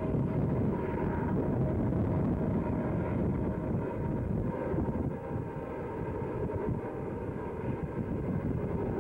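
Steady low rumble of Southern Pacific diesel-electric locomotives working hard up the grade, heard across the valley, mixed with wind on the microphone.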